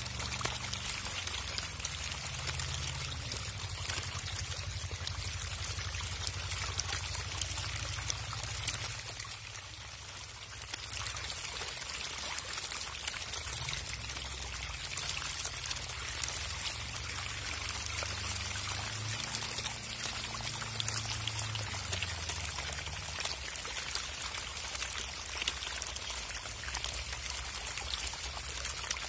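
A mass of hybrid magur catfish feeding in shallow water, thrashing and splashing against one another: a dense, steady churning and crackle of water, over a low rumble. It eases off slightly about ten seconds in.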